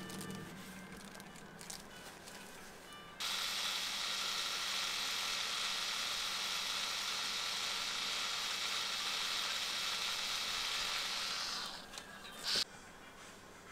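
Electric tattoo machine buzzing steadily as the needle inks skin, starting suddenly about three seconds in and stopping near the end, followed by a brief sharp noise.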